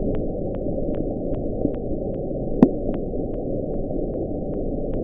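NOAA's underwater hydrophone recording of the 'Bloop', sped up to be audible: a steady deep rumble of ocean noise with faint regular ticks about two and a half times a second and a brief rising sweep near the middle. The sound was later traced to an Antarctic icequake, ice breaking off a glacier.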